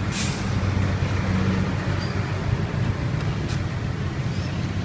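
Steady low rumble of street traffic, with a short hiss at the very start.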